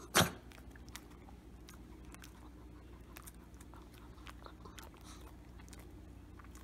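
A Shih Tzu crunching and chewing a hard treat: one sharp snap just after the start, then small irregular crunches.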